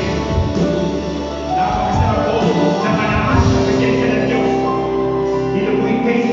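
A live church worship band playing, with electric guitars and keyboard, and voices singing over it.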